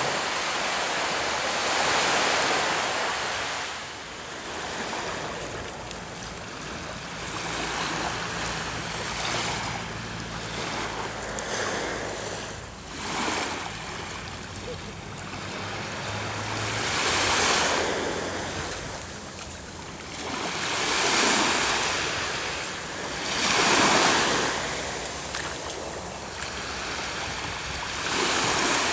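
Small waves breaking and washing up on a sandy beach, the surf swelling and fading every few seconds.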